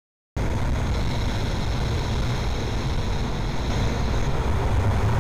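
Wind rushing over the camera microphone on a Yamaha NMAX 155 scooter cruising at about 100 km/h, a steady heavy rumble with the scooter's engine running beneath it. It cuts in suddenly just after the start.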